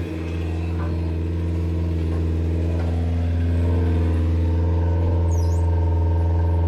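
Heavy-equipment engine running steadily at a constant pitch, getting a little louder after about three and a half seconds. A bird chirps once, briefly, about five seconds in.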